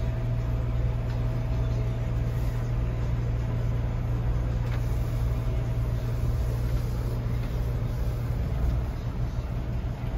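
Steady low drone of a Class A motorhome's engine and road noise heard inside the cab while it drives slowly.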